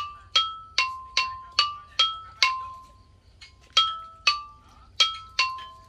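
Single notes struck one at a time on a mallet-played tuned percussion instrument, about two a second, each ringing briefly and stepping up and down in pitch, with a pause of about a second midway.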